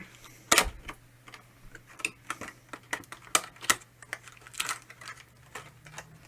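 Fan packaging being handled and opened by hand: a run of irregular clicks and taps, the loudest about half a second in.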